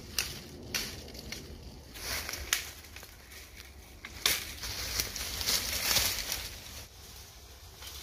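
Dry dead branches snapping and brush crackling as firewood is broken off and gathered: several sharp snaps, then a longer stretch of crunching from about four to nearly seven seconds in.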